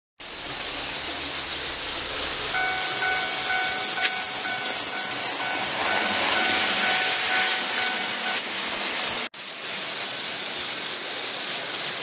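Electronic warning sound of a KATO N-gauge automatic level crossing, a bell-like tone repeating evenly for about six seconds from a few seconds in, while the crossing is active for a passing model train. Under it runs a steady hiss, with a brief break near the end.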